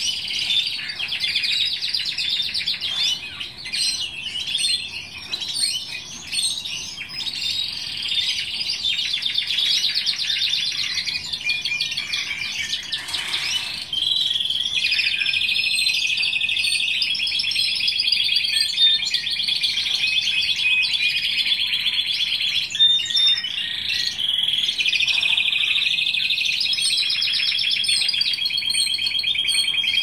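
Timbrado canary singing a long, continuous song of fast trills and rolls, with a short break near the middle and long, even rolls after it.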